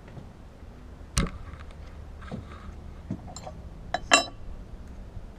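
Metal parts of a harmonic balancer puller kit being handled and knocked together: a few sharp metallic clinks and clacks, the loudest about a second in and another about four seconds in.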